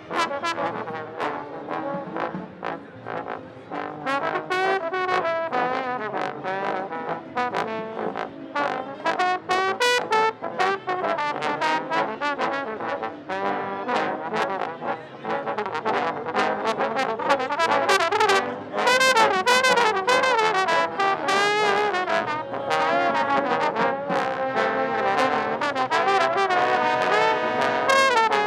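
B.A.C. trombone played solo-style: fast runs of short notes with some bends, giving way to longer held notes in the last third.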